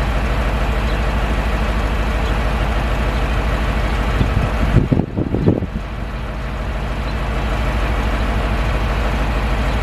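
Dump truck engine running steadily while its air compressor builds brake air pressure toward 100 PSI during an air-brake compressor test. There is a brief low rumble about five seconds in.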